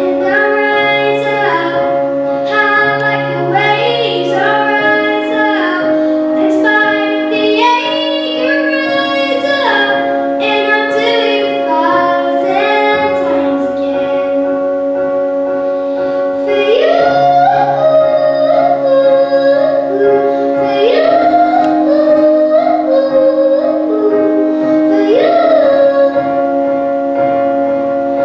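A child singing a song into a microphone over backing music of long held chords.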